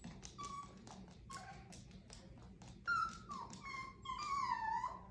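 Chihuahua whining: a couple of short high-pitched whines, then longer, louder whines in the second half, the last one sliding down in pitch. Faint clicks come in between.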